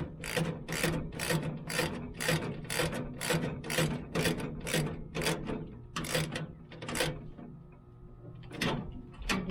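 Socket ratchet clicking in quick regular strokes, about two and a half a second, as a nut is run onto a bolt. It pauses about seven seconds in and starts again near the end.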